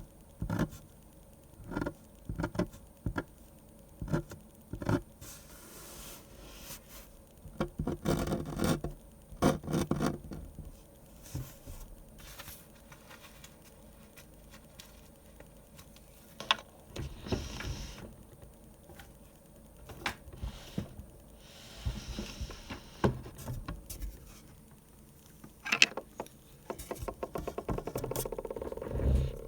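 Hand-drawing manga on paper: irregular short taps and scratchy strokes of the drawing tool, with a few longer scratching strokes, the longest near the end.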